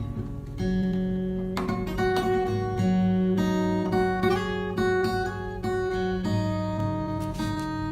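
Background music: acoustic guitar playing a melody of plucked and strummed notes.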